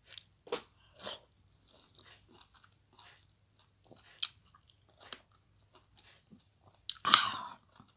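A person chewing a lemon wedge: irregular mouth smacks and clicks, with a louder, longer burst of noise near the end.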